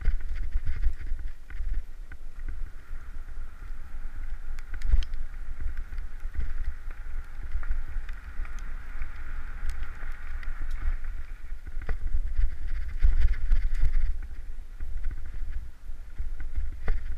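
Downhill mountain bike running fast over a rough, rooty and stony trail, heard from a helmet camera: steady wind rumble on the microphone with the bike's rattle and scattered sharp knocks from hits on roots and rocks.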